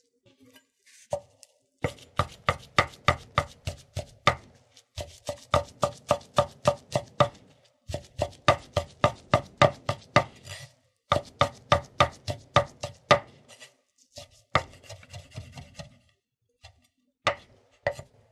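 Chef's knife slicing rolled-up herb leaves into thin strips on a wooden cutting board: quick, even chopping strokes, about four a second, in four runs with short pauses, then a few single cuts near the end.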